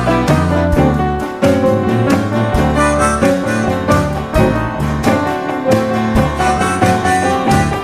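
Live instrumental interlude with no singing: a Yamaha S90 XS stage keyboard in a piano voice and an archtop electric guitar play chords in a steady rhythm.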